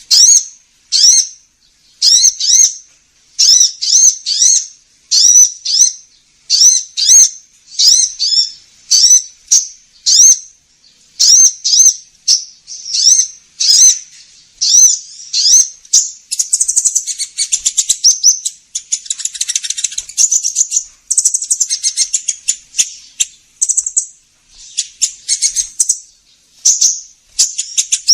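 Sunbird lure call: short, high, sharp chirps repeated about once or twice a second. About halfway through they turn into a fast, dense twittering trill.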